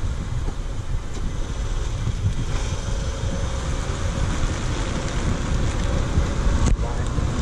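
2004 Honda Accord on the move: steady road rumble with wind buffeting the microphone.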